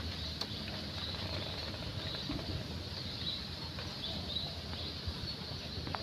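Outdoor ambience: a low rumble of wind on the microphone under a steady high-pitched drone, with a few faint clicks.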